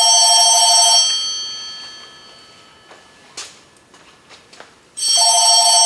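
Telephone ringing: a ring of about two seconds dies away in the first second, then after a gap of about four seconds with a few faint knocks the next ring starts near the end.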